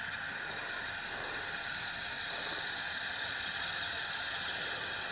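Steady outdoor background hiss that swells slightly in the middle, with a quick run of four or five high chirps in the first second.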